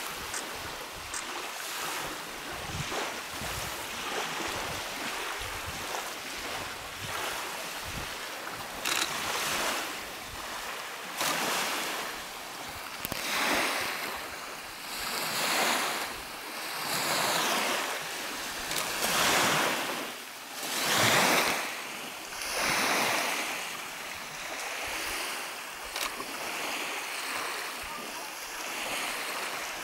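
Small lake waves breaking and washing onto a gravel shore, the surge swelling and fading every couple of seconds, with some wind.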